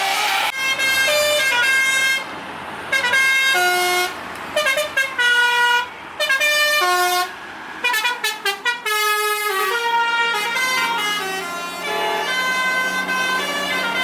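Indonesian bus telolet horn: a multi-tone horn playing a long, winding melody of short stepped notes in repeated phrases, broken by brief pauses. A low steady hum sits under the last few seconds.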